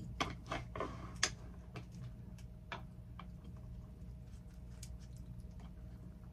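Small clicks and crackles of a cheeseburger being gripped and pulled apart with long acrylic nails: a quick run of clicks in the first second or so, then sparser ones, over a steady low hum.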